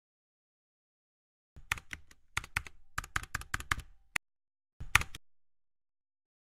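Typing on a computer keyboard: a quick run of key clicks starting about a second and a half in, then a single louder click about five seconds in.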